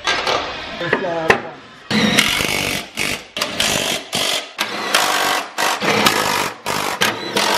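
Power tool running in about six short bursts, each under a second, driving bolts that fasten a new stainless exhaust system under the car.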